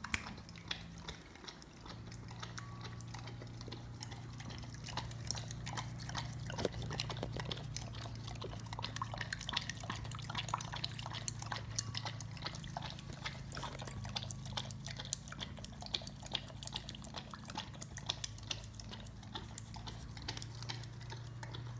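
Dog lapping frothed milk (a babyccino) from a bowl: a long run of quick, wet, irregular tongue clicks and slurps, with a steady low hum underneath.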